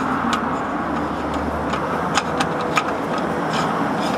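A steady engine drone in the background, from a motor vehicle running nearby, with a few light clicks as the oil filter housing cap is turned on by hand.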